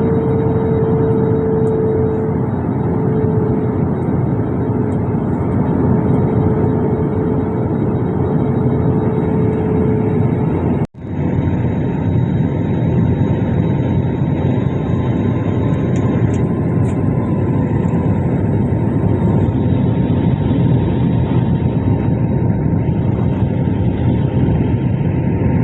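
Steady noise of a jet airliner's engines and airflow heard inside the cabin during the approach to landing, with a steady hum over it for the first ten seconds or so. The sound cuts out for an instant about eleven seconds in, then carries on.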